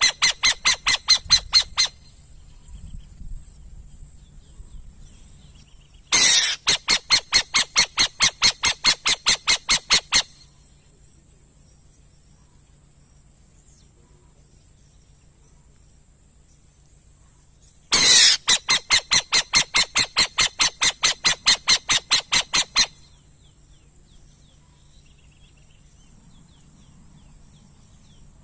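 Bird calling in rapid series of harsh, evenly repeated notes, about four to five a second, in three bouts of roughly four seconds each, with pauses between. A steady high-pitched whine runs underneath.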